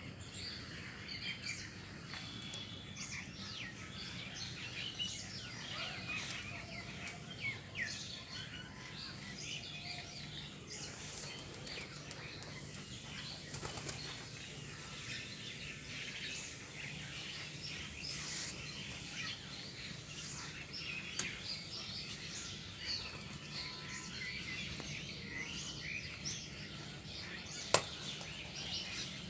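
Birds chirping and twittering continuously, mixed with the wing-flapping of a feeding pigeon, and one sharp click near the end.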